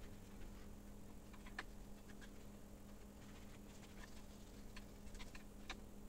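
Faint, scattered small clicks and taps as hands work over a bare CPU in its socket with a paper towel, several in quick succession near the end, over a low steady hum.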